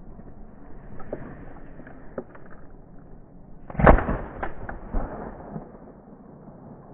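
A shotgun shot about four seconds in, with a second, fainter sharp report about a second later.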